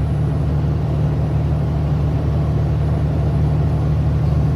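Semi truck driving along at steady speed: a constant low engine drone with road noise, heard from inside the cab.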